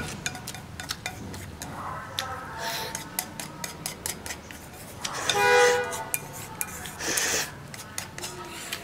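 Wooden chopsticks clicking and scraping against a ceramic rice bowl as rice is shovelled in, many quick taps spread through. A little after five seconds in comes a short tone with several pitches, the loudest sound.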